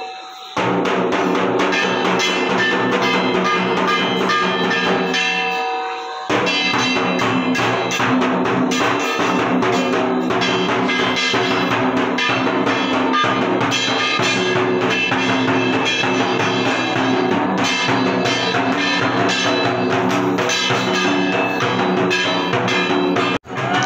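Dhak drum beaten fast with thin sticks together with a small metal kansar gong struck in time, a dense steady festival rhythm with a ringing metallic edge. The drumming breaks off for about a second around six seconds in, starts again, and stops abruptly just before the end.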